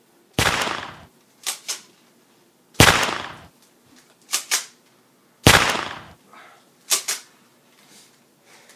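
Three shotgun blasts a little under three seconds apart, each followed about a second later by two quick clicks, like a pump being racked.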